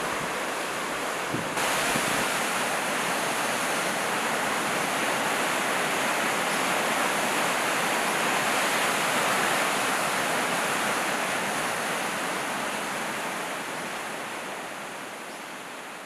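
Heavy swell waves breaking over coastal rocks: a continuous rush of surf. It grows suddenly louder about a second and a half in and fades away over the last few seconds.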